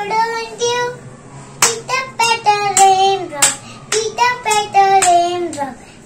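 A child singing a rhyme in a high voice on held, falling notes. From about a second and a half in, hand claps keep time at about two to three a second.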